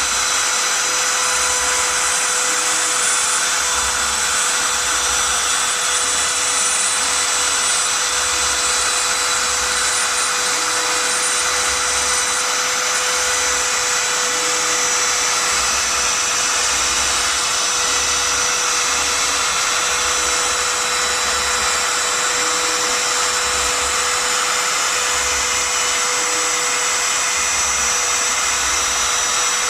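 Spindle motor of a homemade CNC machine running steadily with a high whine while cutting out Christmas decorations, with a low hum coming and going every second or so.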